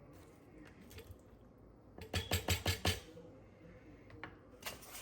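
A kitchen utensil knocking and scraping against a baking dish, a quick run of about five knocks about two seconds in, with a few lighter clicks around it.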